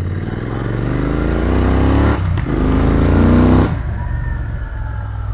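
Royal Enfield Continental GT650's 648 cc parallel-twin through an AEW aftermarket exhaust with the dB killer fitted, heard from the rider's seat while accelerating. The engine note climbs, drops at a gear change about two seconds in, climbs again, and drops at a second shift near four seconds, then runs steadier.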